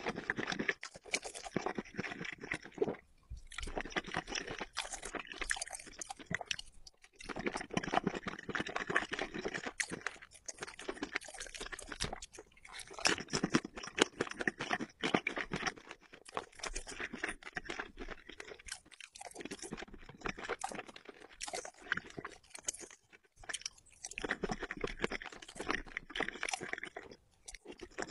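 A person chewing and eating seafood coated in thick spicy sauce, with dense wet, crunchy chewing and smacking that comes in bursts with a few brief pauses.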